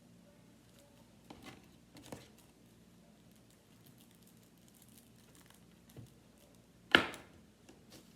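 Fidget toys being handled: a few soft clicks and taps, then one sharp, loud click about seven seconds in.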